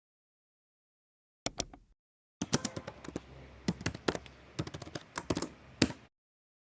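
A quick pair of sharp clicks, then a run of irregular sharp clicks and taps lasting nearly four seconds over a faint hiss.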